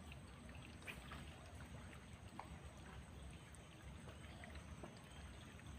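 Near silence: faint outdoor ambience of water trickling and a few scattered small ticks over a low, steady rumble.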